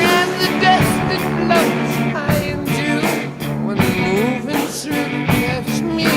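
Rock music: electric guitar playing lead lines with bending notes over a steady drum beat.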